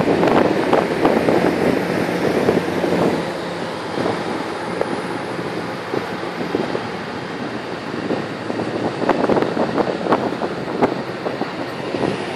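An Amtrak bilevel passenger train rolling past, with a steady rumble of wheels on rail and scattered sharp clacks from the wheels running over the track. Wind is buffeting the microphone.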